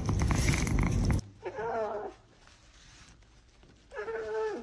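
A cat meowing twice, two short calls a couple of seconds apart. They follow a loud burst of noise that cuts off suddenly about a second in.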